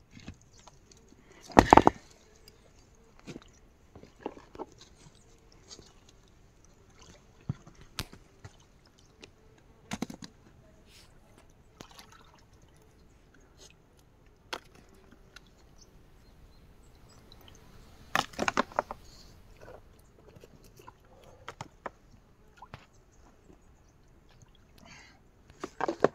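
Hands working among stones and wood at the mouth of a covered water hole: scattered knocks, scrapes and rustles, with louder clatters about two seconds in, around ten seconds, a longer cluster near eighteen seconds, and again near the end.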